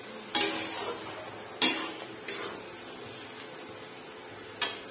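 A metal spatula scraping and clanking against a metal kadai as bottle gourd stems and masala are stirred, with three sharp strokes and one lighter one.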